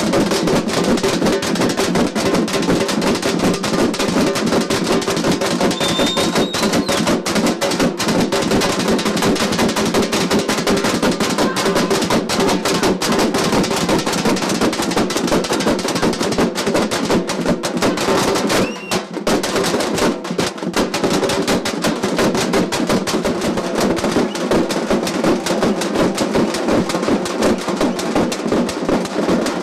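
A large group of drummers beating big double-headed drums with sticks together, in a loud, fast, dense rhythm. The drumming briefly thins about two-thirds of the way through, then carries on.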